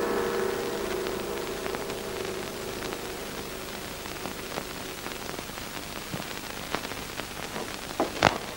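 A ringing, gong-like chord fades away, leaving the steady hiss and faint crackle of an old film soundtrack. Near the end come a couple of sharp chalk strokes on a blackboard.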